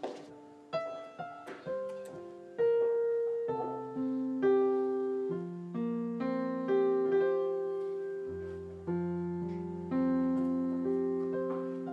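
Background music: a solo piano playing a slow melody, each note struck and left to fade. Low bass notes join about two-thirds of the way through.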